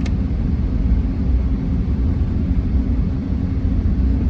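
Steady low rumble of a car driving, heard from inside the cabin: engine and tyre noise on a snow-covered road. A short click at the very start.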